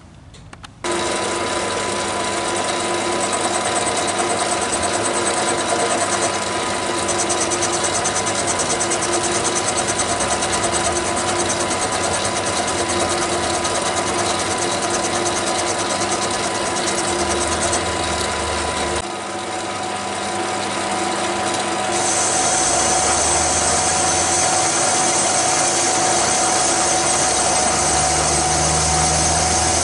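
Small bench lathe starting up about a second in and running steadily with a gear whine as its tool skims the outside of a cast iron backing plate. The sound dips briefly around nineteen seconds in, then runs louder with a higher whine from about twenty-two seconds.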